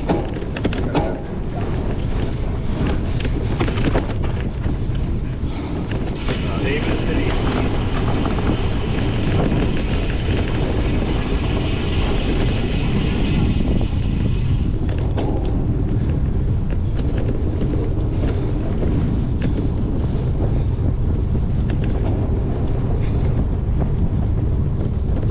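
Wind buffeting the microphone of a cyclocross bike in motion, over the bike rattling and clicking as it rides rough ground. A hissier stretch of noise comes in about six seconds in and fades about nine seconds later.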